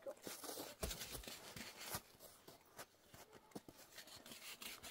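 Faint rustling and scraping of objects being handled, with scattered light clicks and knocks, busiest in the first two seconds and sparser after.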